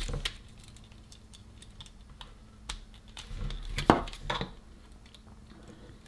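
Small plastic clicks and taps from handling the opened PS5 DualSense controller and its parts, a couple right at the start and a short cluster around three to four seconds in, the loudest near four seconds.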